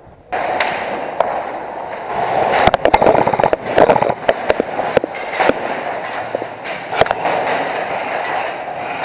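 Airsoft guns firing: scattered sharp pops with quick rapid-fire runs between about two and five seconds in, over a steady rushing noise that starts abruptly just after the start.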